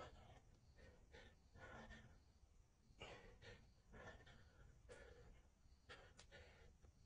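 Faint, heavy breathing of a man doing push-ups, short breaths coming roughly once a second.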